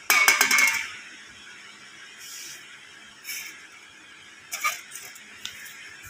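Aluminium drink can falling over onto a tile floor and rolling: a loud burst of metallic clinks and clatter in the first second, followed by a few fainter taps and scrapes.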